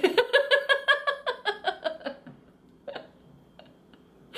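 A woman laughing: a quick run of high-pitched laughs, about six a second and falling in pitch, that dies away after about two seconds, followed by a few faint clicks.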